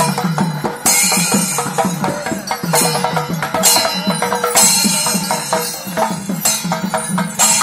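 Percussion music of drums and cymbals: fast, dense drum strokes with a cymbal clash about once a second.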